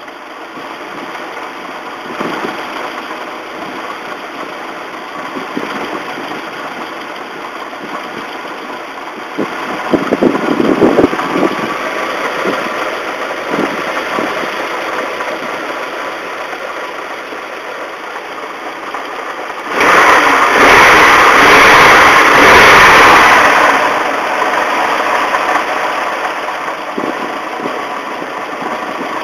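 Nissan Silvia's naturally aspirated SR20 four-cylinder engine idling with a rumbling knock, blipped briefly about ten seconds in and revved for a few seconds a little past the middle. The rumble is the sign of plain bearings starting to seize, the connecting rod bearings, in an engine with over 213,000 km.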